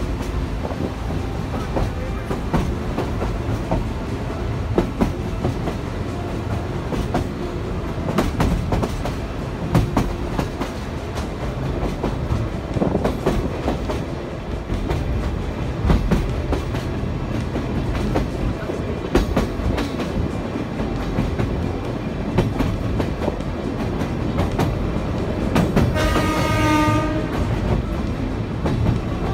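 Sagano Romantic Train carriage running on the rails: a steady rumble with irregular clacks and knocks of the wheels. A brief high tone sounds near the end.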